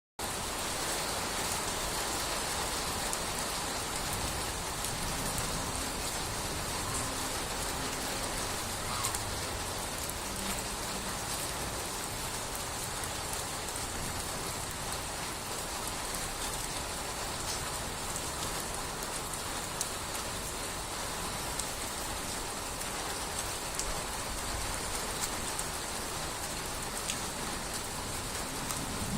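Steady rain falling, an even patter without a break.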